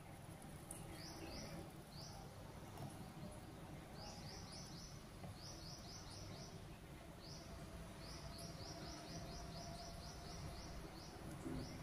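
Faint bird chirps: short, quickly falling notes in fast runs of two to eight, repeating every second or two over a low steady hum.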